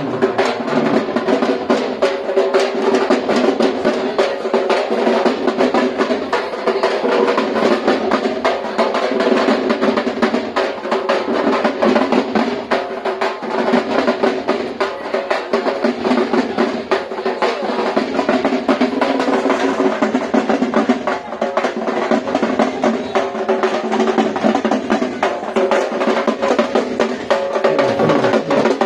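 Bengali dhak drums beaten with sticks in a fast, continuous rolling rhythm, with a steady droning pitch held beneath the strokes.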